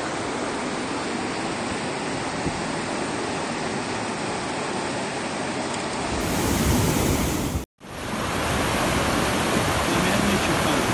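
Fast-flowing floodwater rushing: a steady, even noise that changes abruptly about six seconds in, and again after a brief moment of silence about eight seconds in.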